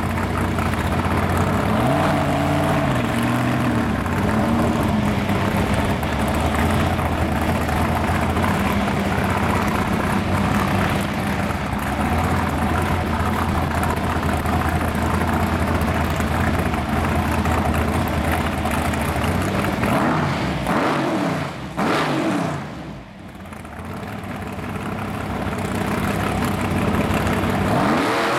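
820-cubic-inch Jon Kaase big-block V8 in a 1928 Ford rat rod idling loudly at the drag-strip starting line. It is blipped up and down a couple of times about two seconds in, revved in a few quick sweeps about three-quarters of the way through, dips briefly, then the revs build again toward the launch.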